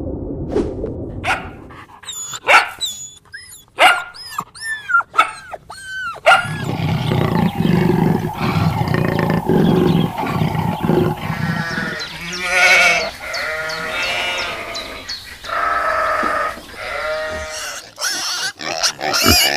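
Animal calls in turn: a run of short, high, pitched calls, then a low rumbling stretch, then longer calls with many overtones.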